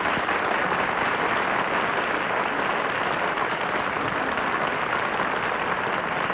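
Studio audience applauding with steady, even clapping.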